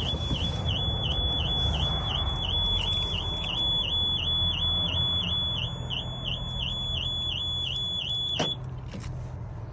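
2017 Volvo XC90 anti-theft alarm sounding: a high electronic tone pulsing with about three dips a second, which cuts off abruptly about eight and a half seconds in.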